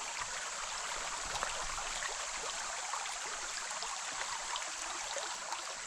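Steady rush of a flowing mountain stream, with small splashes and trickles scattered through it.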